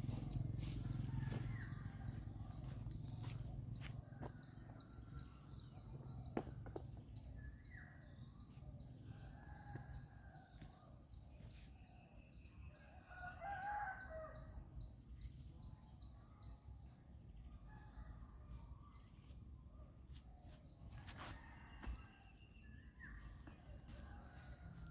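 Faint rural outdoor ambience: a fast, high, even chirring throughout, with a few faint bird calls scattered through it.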